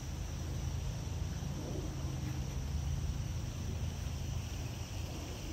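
Steady outdoor background: a low hum with a faint, even high-pitched whine over it.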